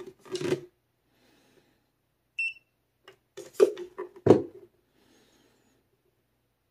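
A single short electronic beep from the GoLabs R300 portable power station about two and a half seconds in, as its display lights up. Around it come knocks and bumps of the unit being handled and turned on a wooden board, the loudest two a little after three and a half and four seconds in.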